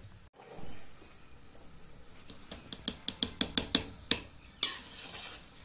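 A metal utensil clinking against a steel cooking pot: a quick run of about a dozen clinks a few a second, then one louder clank near the end.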